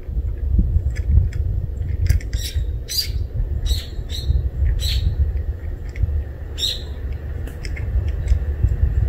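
Short, sharp chirps from small birds, about a dozen in a loose cluster from about two to seven seconds in, over a steady low rumble.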